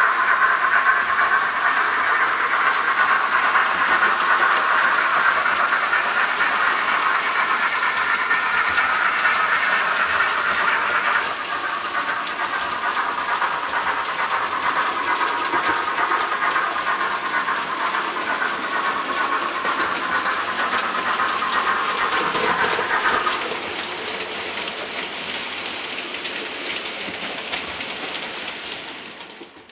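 Model railway freight train running along the layout track, a steady noisy running sound of wheels and motors on the rails. It drops in level twice, about a third of the way in and again about three-quarters in, then fades out at the end.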